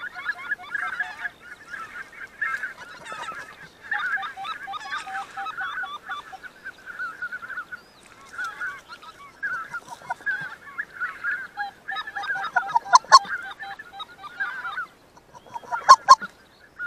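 Wild geese honking, a flock calling over and over, with two louder, closer honks about thirteen and sixteen seconds in.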